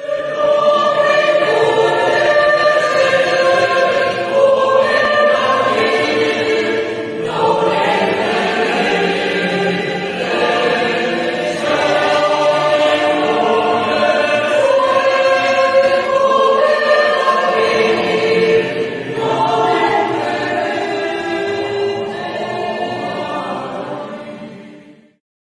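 Choral music: several voices singing together in sustained, held notes. It fades out near the end.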